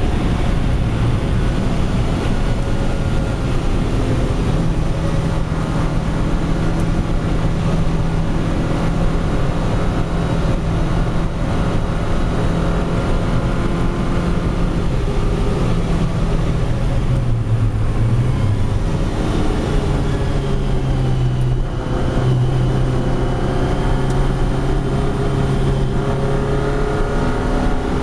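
Lotus Elise engine running hard at track speed, heard from inside the cabin over steady road and tyre noise. The engine note holds steady, drops and wavers around the middle, then holds steady again at a lower pitch.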